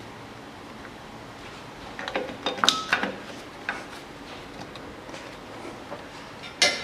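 Metal clinks and clicks as rear drum-brake shoes and springs are handled and fitted: a cluster of clinks a couple of seconds in, a few scattered ones, and a sharp click near the end.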